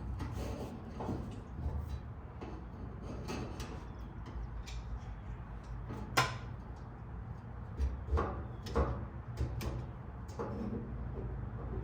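Hand tools clicking and knocking against metal while working old, stuck fuel lines loose, in scattered irregular taps with the sharpest knock about six seconds in and a cluster of knocks around eight to nine seconds. A steady low hum runs underneath.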